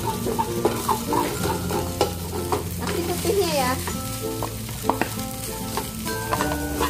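Spatula scraping and knocking against a metal wok as rice is stirred into scrambled egg, with the sizzle of frying underneath.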